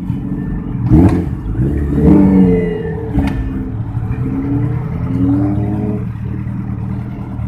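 Suzuki Hayabusa's inline-four engine revved in several throttle blips, its pitch rising and falling. Two sharp pops come, one about a second in and one near the middle.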